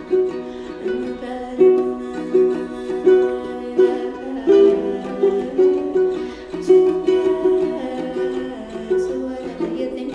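Small acoustic string instrument strummed in a steady rhythm, playing a chord progression with an accent about every three quarters of a second.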